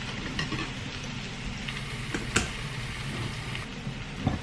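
A steady low mechanical hum in a kitchen, with two light utensil clinks, one about two seconds in and one near the end, as a sauce is mixed.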